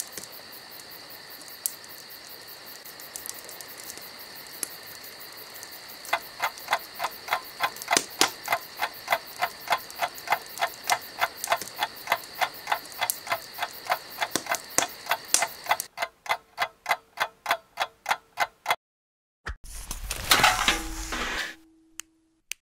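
Clock ticking, faint at first, then louder and even from about six seconds in at roughly three ticks a second. Near the end the ticking stops and a short rushing burst with a brief low tone follows.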